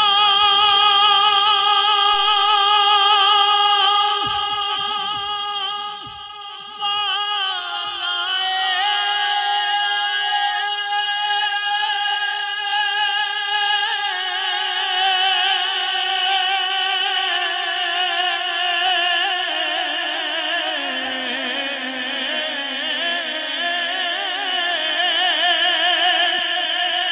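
A male naat reciter singing unaccompanied through a microphone and loudspeakers, drawing out long held notes with a wavering vibrato. There is a short dip about five seconds in, and the melody steps down lower in the last third.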